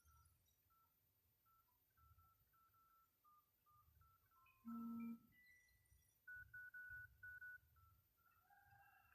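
Faint electronic beeps from a phone: a short buzzy tone about halfway through, then four short high beeps in quick succession, over scattered faint short chirps.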